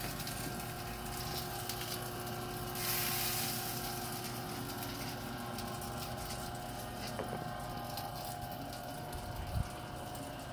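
Rotisserie smoker running with its racks turning: a steady mechanical hum under a hiss, with a louder burst of hiss about three seconds in and a single knock near the end.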